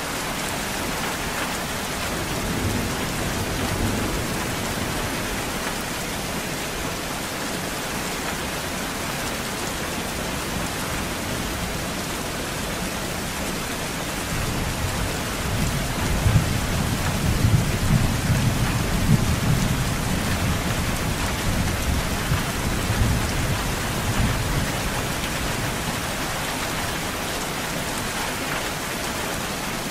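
Steady rain falling, with a low rolling rumble of thunder that builds about halfway through, is loudest for several seconds, then fades away. A fainter rumble comes near the start.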